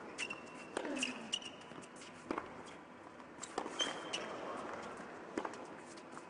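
Tennis rally on an indoor hard court: about four sharp racket hits on the ball, roughly one every second and a half, with short high squeaks of shoes on the court between them.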